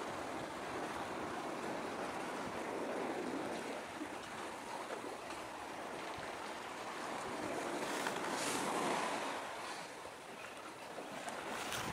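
Small waves washing at the shore: a steady rushing noise that swells and ebbs every few seconds, with a brighter hiss about eight seconds in.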